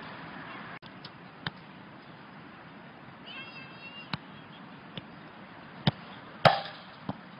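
Soccer ball being kicked on an artificial-turf pitch: about half a dozen sharp thuds spread through the clip, the loudest about six and a half seconds in.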